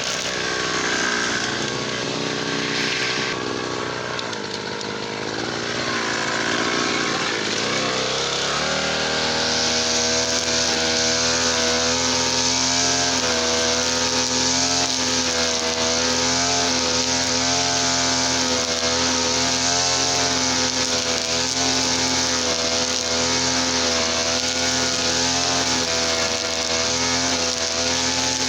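Two-stroke brush cutter engine running on mixed fuel. For the first eight seconds or so its pitch rises and falls unevenly, then it settles into a steady speed with a slight waver.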